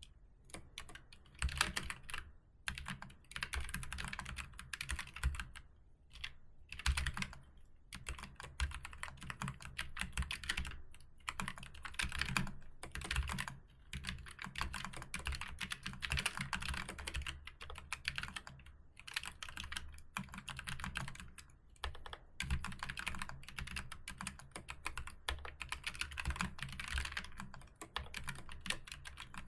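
Typing on a computer keyboard: continuous runs of rapid keystrokes, broken by several brief pauses.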